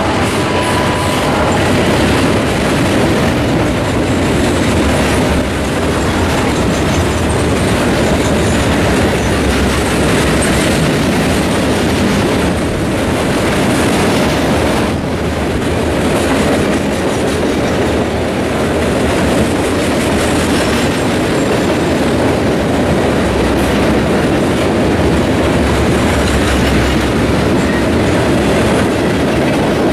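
A long freight train of open-top coal hopper cars rolling past close by, steel wheels running on the rails with a loud, steady rumble and rattle.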